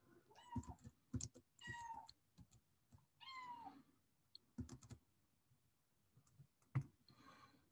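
A domestic cat meowing faintly three times in quick succession, each meow short and falling in pitch at its end, followed by a few faint clicks.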